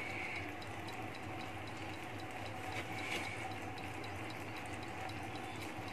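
Eggs in tomato masala simmering in a pan on a gas stove: a steady, soft, even sizzle.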